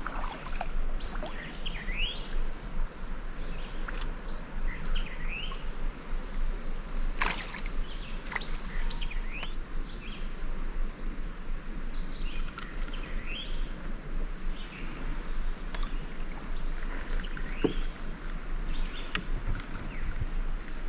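Birds chirping, short rising and falling calls repeated every second or two over a steady outdoor background, with one sharp knock about seven seconds in.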